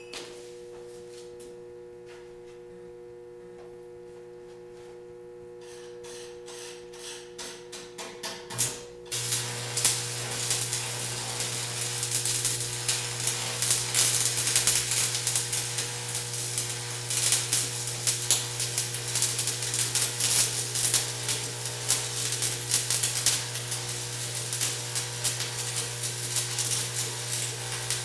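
Arc welding on steel pipe: scattered crackles about six seconds in, then a steady crackling sizzle of the arc from about nine seconds, over a steady hum from the welding machine under load.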